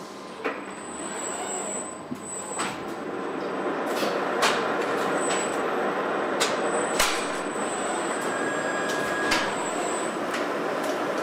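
Machinery noise of a robotic car-body assembly line: a steady din with about half a dozen sharp clicks and knocks from the robots and tooling, and a faint high whine that comes and goes.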